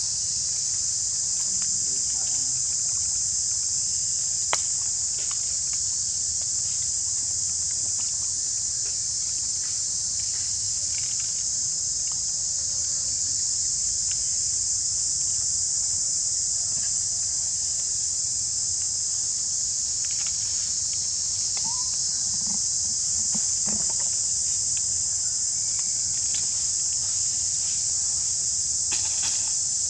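Steady, high-pitched drone of an insect chorus in tropical woodland, unbroken and even throughout.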